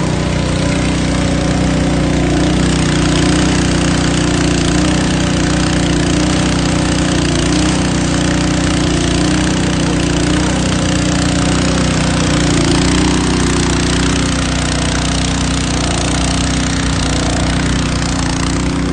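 Engine-driven water pump running steadily at constant speed, under a loud even rushing noise.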